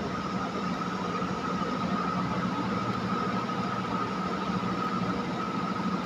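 Steady mechanical hum and hiss with a faint, even high whine running under it, unchanging throughout.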